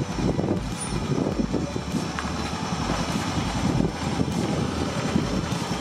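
John Deere LX175 riding lawn mower's engine running steadily while the mower drives along.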